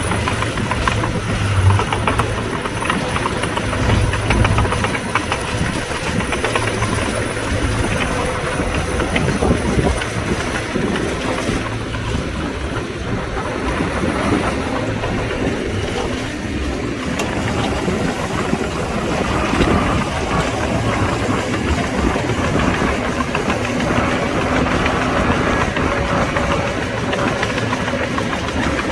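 Diesel engines of heavy earthmoving machinery running under load, with a dense metallic clatter over a steady low engine hum.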